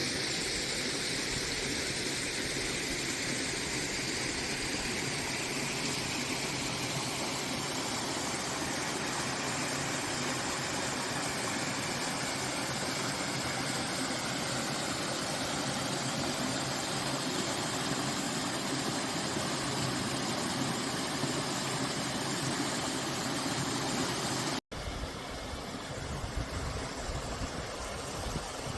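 Valley stream water flowing steadily, a continuous rushing. About 25 seconds in it drops out for an instant and resumes a little quieter.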